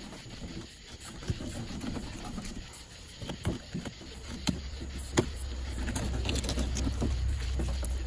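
Bubba fillet knife cutting and scraping through a redfish on a cutting board, with scattered small clicks and taps of the blade and hands on the board. A low steady rumble comes in about halfway through.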